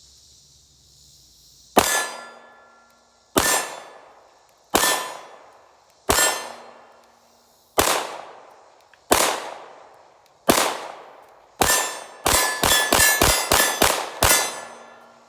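Palmetto State Armory Dagger 9mm pistol firing about sixteen rounds of 115 grain full metal jacket. The first eight come about a second and a half apart, then eight more in a fast string near the end, with hits ringing on a steel target.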